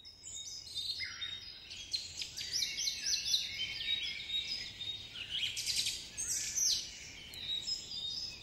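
A chorus of many birds chirping at once: short, high chirps falling in pitch, overlapping densely.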